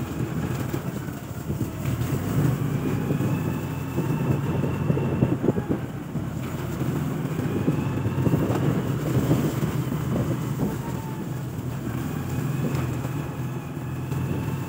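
Motorcycle engine running under way on a rough dirt track, its pitch climbing again and again with the throttle. Scattered knocks come from the bike jolting over ruts and potholes.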